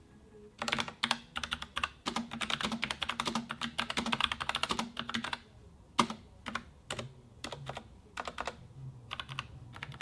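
Logitech MX Mechanical keyboard with low-profile tactile switches being typed on: a fast continuous run of key clicks for about five seconds, then single keys pressed one at a time, each a separate click.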